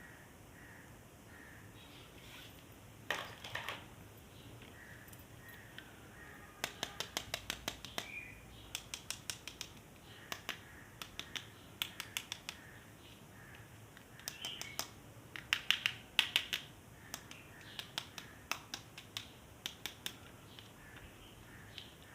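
Sharp clicks and taps of hard plastic toys and packaging being handled. They come in quick runs of several clicks, with a brief scrape near the start.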